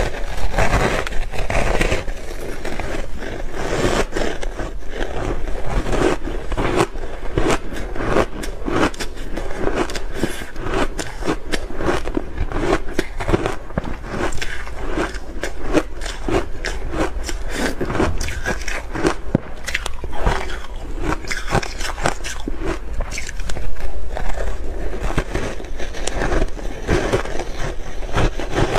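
Bar ice dusted with matcha powder being bitten and chewed: a continuous run of hard, sharp crunches and cracks, one after another.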